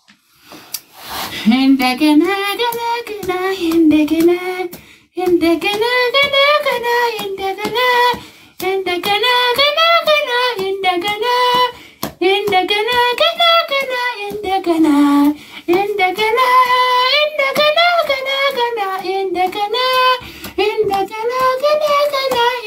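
A high-pitched voice singing a repeating, rising-and-falling tune with no instruments, pausing briefly between phrases.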